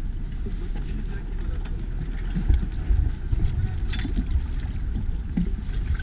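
Wind buffeting a small camera's microphone in an uneven low rumble, with one sharp click about four seconds in.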